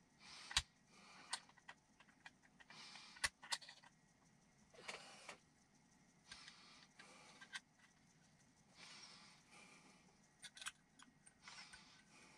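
Faint hand-handling noises from an RC spring rate gauge as a coil spring is fitted into it: scattered sharp clicks, the loudest about half a second and three seconds in, between short scraping rustles.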